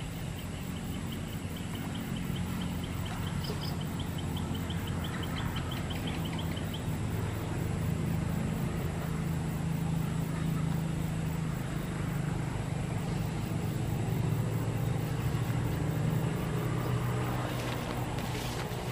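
A motor engine drones steadily, its pitch shifting a few times. Over the first seven seconds a faint, quick run of high ticks, about four or five a second, sounds above it.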